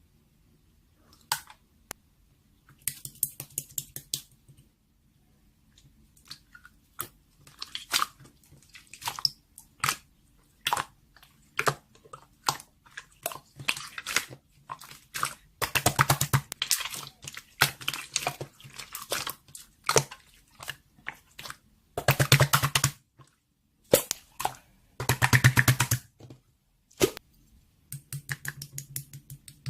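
Close-up crunching and crackling in irregular bursts, some a second or two long and some single clicks, with short pauses between them.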